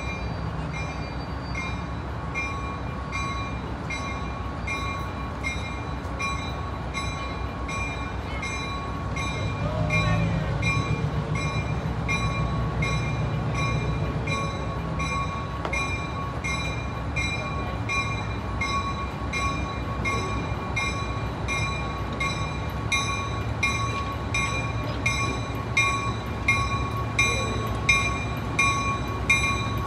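Railroad bell ringing steadily, a little more than one strike a second, over the rumble of a train, which grows louder about ten seconds in.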